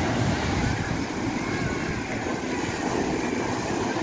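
Sea surf breaking and washing up the beach in a steady rush, with wind buffeting the microphone in low rumbles.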